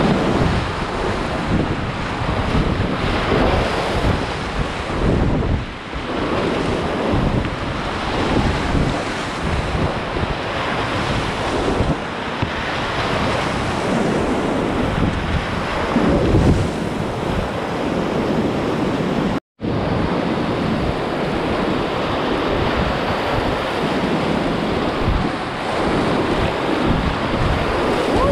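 Whitewater rapids rushing and splashing right around a kayak, with wind buffeting the microphone. The sound cuts out for an instant about two-thirds of the way through.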